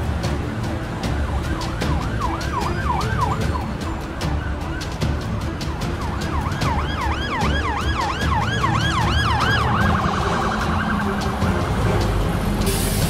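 Siren sound effect yelping in fast rising-and-falling sweeps, in two runs: a short one about two seconds in and a longer one from about six and a half to ten seconds. It plays over a soundtrack with a ticking beat, and a brief burst of hiss comes near the end.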